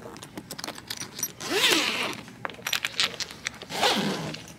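Zipper on a hard-shell suitcase being worked by hand, a run of many small quick clicks, being tested to see that it works. Short bits of a voice come in about one and a half seconds and four seconds in.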